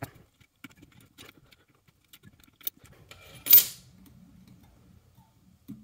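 Small metal wrench clicking lightly against a prop nut while the nut is tightened. About three and a half seconds in there is one short, louder clatter as the wrench is put down.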